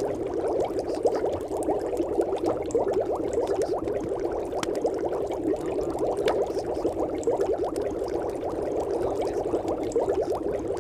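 Steady, muffled bubbling noise like water, the masking background of a subliminal audio track whose affirmations are meant to be inaudible.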